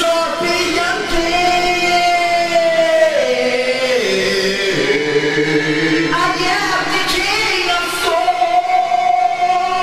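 Music with singing: long held vocal notes that step down in pitch around the middle and rise again near the end.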